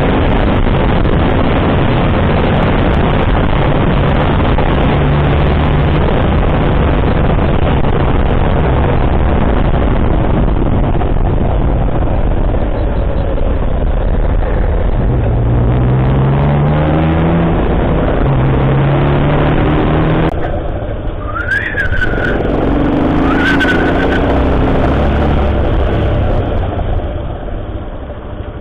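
A road vehicle on the move with loud wind noise over the microphone and its engine running underneath; the engine pitch climbs in steps about halfway through, as if accelerating through the gears. Near 20 seconds the wind noise drops off sharply as it slows, and two short high tones rise and hold briefly a couple of seconds apart.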